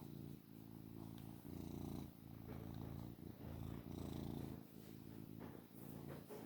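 Maine coon cat purring steadily, the low purr rising and falling in a pulsing rhythm with each breath in and out.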